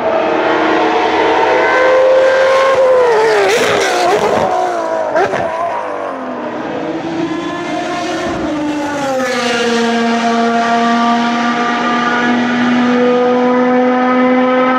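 Ferrari racing car engines running at high revs. The pitch wavers and jumps between about 3 and 5 seconds as the revs change, then settles into a steady note that rises slowly from about 9 seconds.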